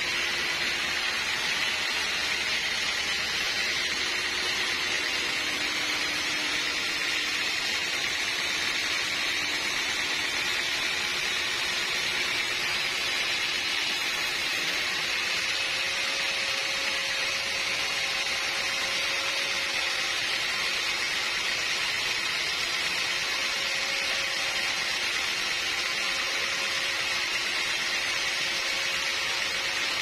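Sawmill saw running steadily through a large teak log, an even, unchanging hiss of blade cutting wood.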